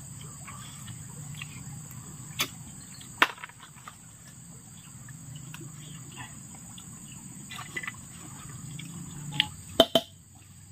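Insects keeping up a steady high-pitched drone, with a few sharp clicks and taps over it: two a few seconds in and a quick cluster of three near the end.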